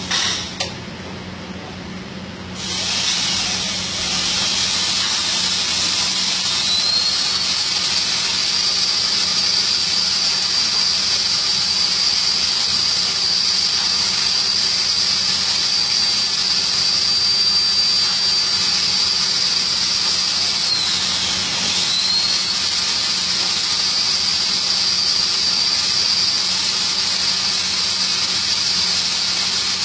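Two brief knocks, then from about two and a half seconds in a loud, steady hiss of gas escaping with a high whistle on top that rises about seven seconds in and dips briefly near twenty-two seconds: pressurised gas escaping at the pipe connection of a split air-conditioner outdoor unit.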